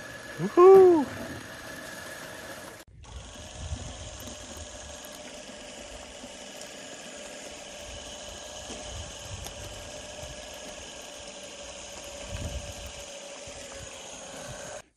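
A man whoops at the start. About three seconds in, an ATV winch takes over, running steadily with a high whine as it drags a heavy log through the swamp.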